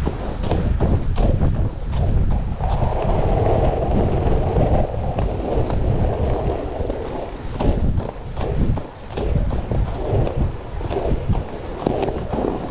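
Roller skate wheels rolling on rough asphalt, with a steady low rumble, wind buffeting the microphone, and scattered sharp clicks as the wheels cross cracks and seams in the road.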